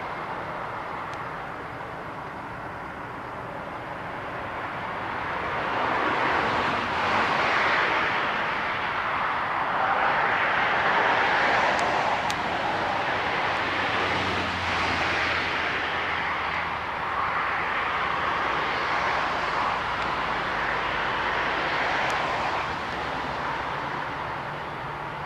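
Aircraft engines running: a broad rushing roar that builds about six seconds in and stays loud, swelling and easing.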